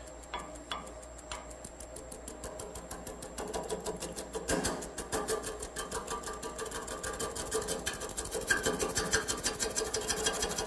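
Wood lathe turning an irregular green firewood blank slowly while a shallow gouge starts roughing it round: a rapid, rhythmic clatter as the edge strikes the high spots once per turn, growing louder as the cut takes hold, over a steady hum from the lathe. The vibration comes from the uneven shape and knots of the blank.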